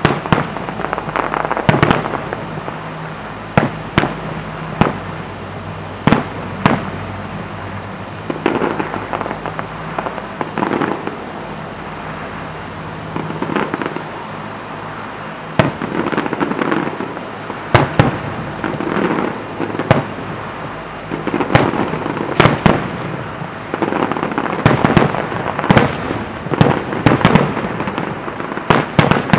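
Fireworks display: aerial shells bursting in a long series of sharp bangs, with crackling between them. The bangs come thicker and faster in the last third.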